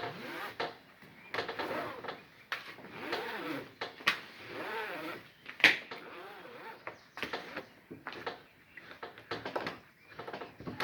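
Nylon webbing being dragged and worked back out of a steel ratchet strap's drum: rasping, sliding strap noise broken by many metal clicks from the ratchet, with one sharp, loud click about halfway through. This is the laborious freeing of a strap that was ratcheted without first taking up the slack.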